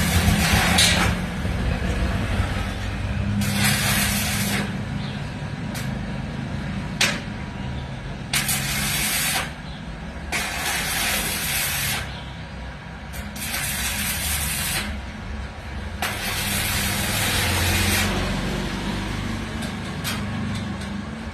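Electric arc welding in a series of short passes: a crackling hiss that starts and stops sharply, each run lasting one to two seconds, over a steady low hum.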